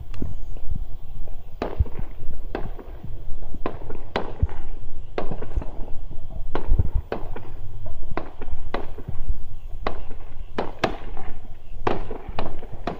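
Aerial firework shells bursting overhead: about a dozen sharp bangs at irregular intervals, roughly one a second, each ringing on briefly after the crack.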